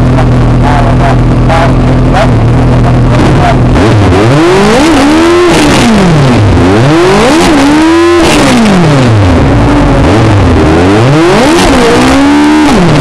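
Single-seater race car's engine, close and loud: idling steadily, then from about four seconds in revved up and let fall three times in long sweeps, the revs cut off sharply after the second peak.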